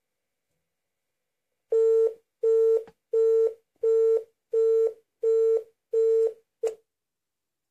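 Telephone busy tone heard through a Sanyo AD400 landline's speakerphone: seven short, even beeps of one steady pitch, about one and a half a second, starting a little under two seconds in, with an eighth beep cut short as the speakerphone button is pressed.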